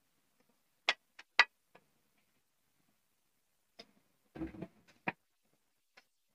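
Metal slotted spoon clinking and scraping against a steel kadhai while dry semolina is stirred for roasting: a scattering of sharp, irregular taps.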